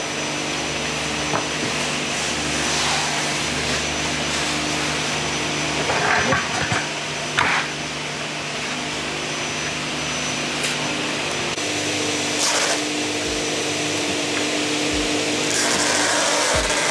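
A steady mechanical hum, like an electric motor running, with several short bursts of tool noise partway through and a longer burst near the end.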